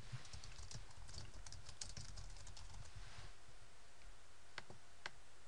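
Typing on a computer keyboard: a quick run of faint keystrokes for about three seconds, then a couple of single clicks near the end.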